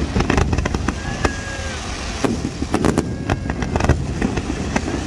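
Fireworks display: clusters of sharp bangs and crackles from comets firing and aerial shells bursting, over a steady low rumble.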